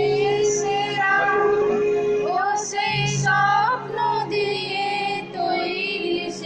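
A group singing a Hindi patriotic song to electronic keyboard accompaniment with held chords.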